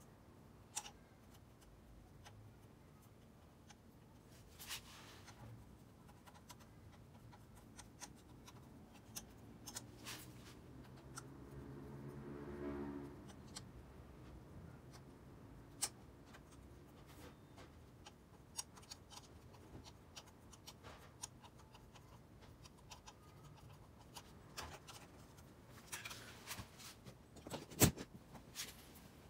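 Sparse light clicks and taps of a soldering iron tip and solder wire worked against a stainless steel motorcycle muffler. A faint low hum swells and fades midway, and a sharper knock comes near the end.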